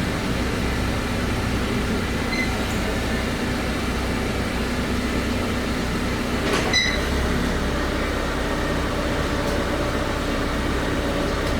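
Steady rumbling vehicle noise, with a short high squeak about seven seconds in.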